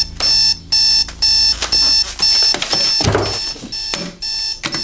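Digital bedside alarm clock beeping, a high-pitched beep about twice a second, with a brief rustle of bedclothes about three seconds in.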